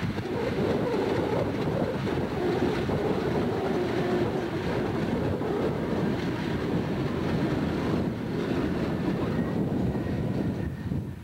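Seaboard System diesel-electric locomotives running past as they pull out with a freight train, a steady engine rumble, with wind buffeting the microphone.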